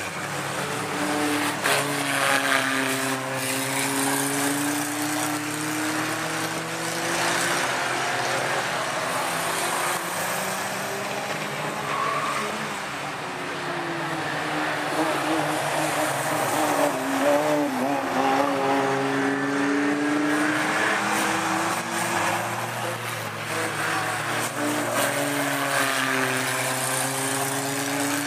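Several Nissan Micra banger race cars' engines running hard round the oval, their pitch rising and falling as they accelerate and lift off, with more than one engine heard at once.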